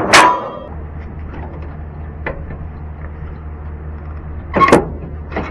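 A vehicle engine runs with a steady low hum, broken by sharp metallic clanks: a loud one at the start, a lighter one about two seconds in, and another loud one near the end.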